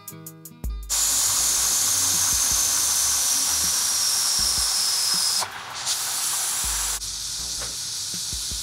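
Vasconia pressure cooker venting steam through its lid valve, a sign the pot is up to pressure. A loud steady hiss with a thin high whistle that slides slowly downward starts about a second in. It dips briefly past the middle, then carries on more quietly.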